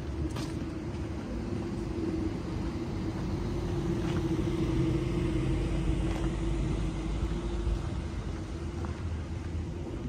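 A motor vehicle running close by: a low engine rumble that swells to its loudest about halfway through and then eases off, with a steady hum underneath.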